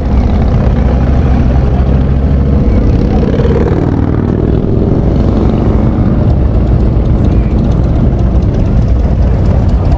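Motorcycle engine running while the bike is ridden, its note shifting a few seconds in.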